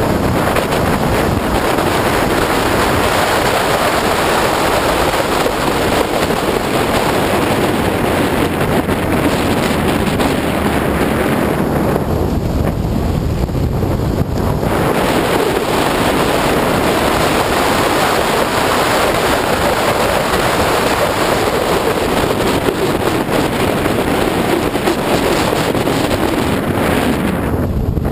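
Opel Speedster at track speed: loud wind noise rushing over the microphone, with the car's engine and road noise underneath. The rushing eases for a couple of seconds about halfway through, then comes back.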